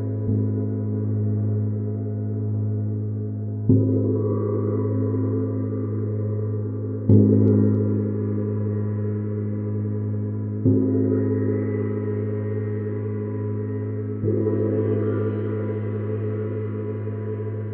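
Neptune gong struck with a mallet five times, about every three and a half seconds, each stroke swelling a deep, continuous ringing that never dies away between strokes; the middle stroke is the loudest.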